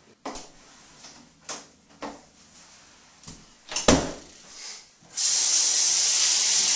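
A few soft knocks, then a door pushed shut with a sharp thump about four seconds in. About a second later a sink tap is turned on and water runs steadily.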